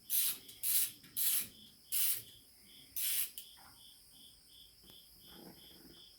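Hand socket ratchet worked back and forth on a manifold nut, giving short raspy ratcheting strokes about twice a second that stop a little past halfway. A cricket chirps steadily underneath.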